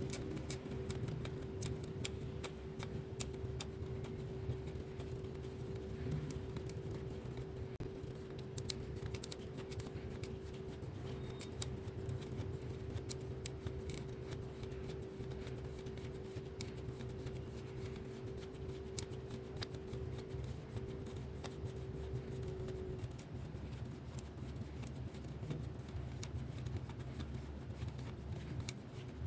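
Fine-tip pen scratching over paper as a plastic Spirograph wheel is rolled around its toothed ring, with many small, sharp plastic clicks. A steady low hum runs underneath and stops about two-thirds of the way through.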